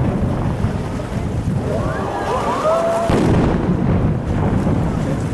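Fireworks display going off: a continuous low rumble of shell bursts, with a louder bang about three seconds in.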